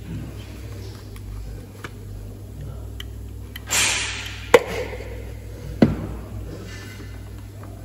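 Hands handling plastic ignition coils and connectors in a car engine bay: a short scraping rustle about four seconds in, then two sharp clicks about a second and a half apart, over a low steady hum.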